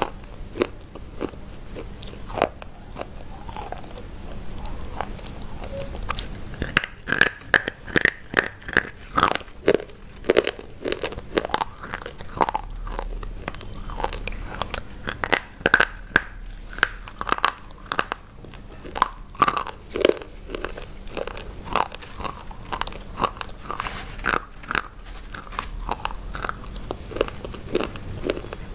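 Close-miked biting and chewing of hard white sticks: a run of sharp, crunchy cracks, thickest from about a quarter of the way in.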